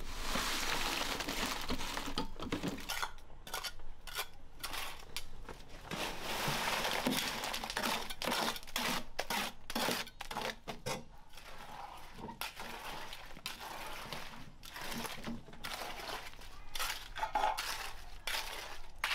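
Wet concrete being tipped from a steel wheelbarrow and scraped and spread: a run of short metallic scrapes, knocks and clinks.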